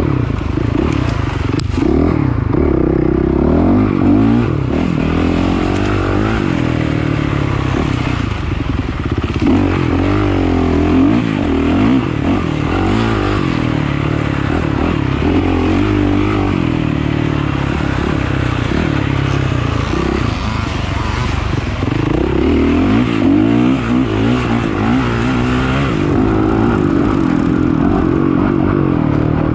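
Off-road dirt bike engine running hard, its pitch rising and falling again and again as the throttle opens and closes, with clattering and scraping from the bike over rough ground.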